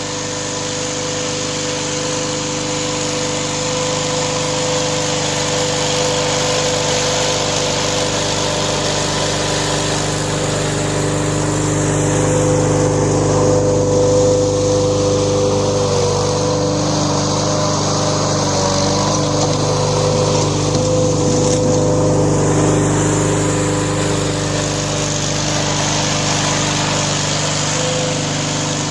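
Backhoe loader's diesel engine running steadily, growing somewhat louder through the middle with small changes in engine speed.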